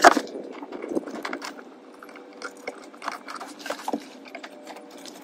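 Handling noises at a car seat's base and frame: a sharp knock right at the start, then light scrapes and small clicks of gloved hands and metal parts being worked.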